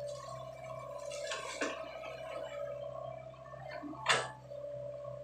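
Sany SY55C mini excavator running with a steady engine and hydraulic whine while its bucket sloshes and gurgles through wet mud and water. A single sharp knock about four seconds in is the loudest sound.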